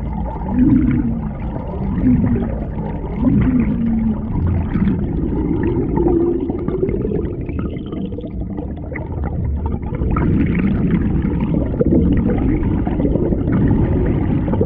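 Water heard underwater, muffled and gurgling, as a canoe paddle blade pulls through it in repeated strokes, swelling with each stroke, with low wavering tones running under it.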